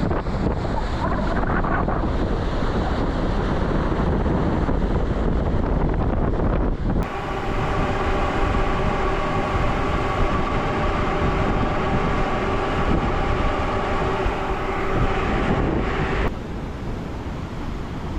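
Wind buffeting the microphone aboard a moving cruise ship, over the rumble of the ship's engine. About seven seconds in, the sound cuts to a steady machinery drone with several held tones, which cuts off abruptly near the end, leaving the wind.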